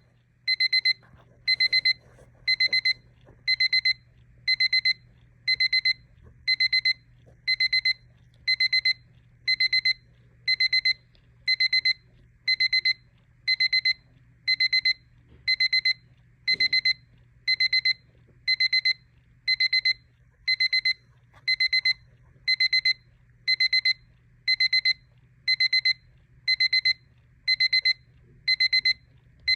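Battery travel alarm clock's alarm beeping: a quick burst of rapid high-pitched beeps, about half a second long, repeating about once a second.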